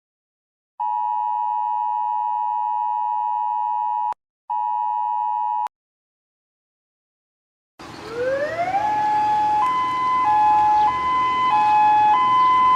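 Emergency alert broadcast tones. First comes a steady electronic alert tone held for about three seconds, then sounded again briefly. After a pause, a siren-like alarm over a noisy background rises in pitch for about a second and then switches back and forth between two pitches.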